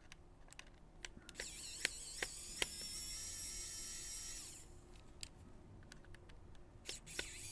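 Double-zero Phillips screwdriver backing out the tiny screws at the top of a PSP's case: a high, wavering whine with scattered clicks for about three seconds, starting about a second in, and again near the end.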